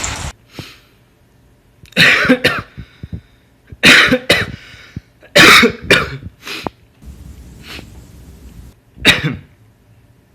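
A person coughing hard in four separate fits, each about half a second long, spread a few seconds apart.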